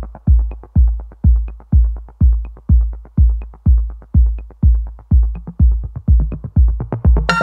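Electronic background music: a deep kick drum on a steady beat, about two hits a second, with light ticking between the hits; a fuller synth layer comes in near the end.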